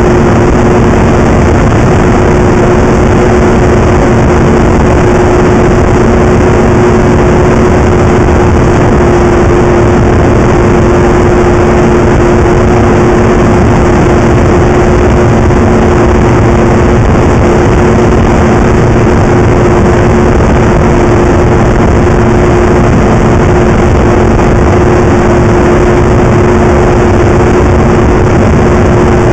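Snowmobile driving at a steady cruising speed: a constant engine drone that holds one pitch, over a loud, even rushing noise, with no revving or let-up.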